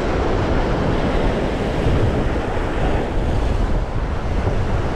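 Surf washing in over a shallow rocky reef shelf in a steady rush of foam, with wind buffeting the microphone in a low rumble.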